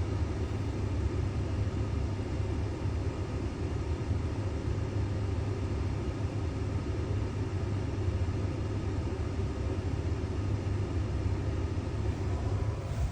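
Steady low rumble of a running vehicle engine, unchanging throughout.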